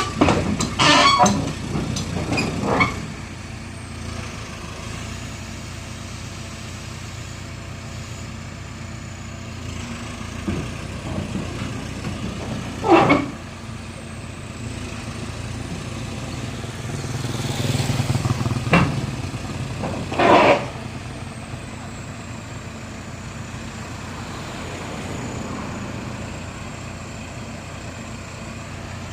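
Heavy diesel engine running steadily, with a few short loud blasts over it: several in the first three seconds, then single ones about halfway through and a little after.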